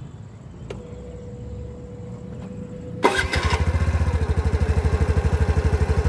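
TVS Jupiter ZX scooter's 110 cc single-cylinder engine being started: a click and a faint steady hum, then about three seconds in the engine catches and settles into a steady, evenly pulsing idle.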